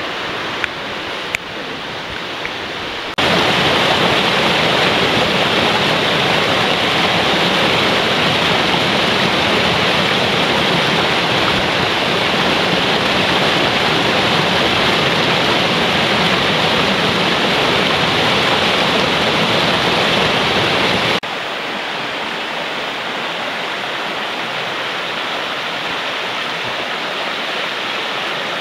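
Steady rush of a fast mountain river. About three seconds in it suddenly becomes louder as water pours over a small weir, and about 21 seconds in it drops back to the quieter rush of shallow rapids over rock.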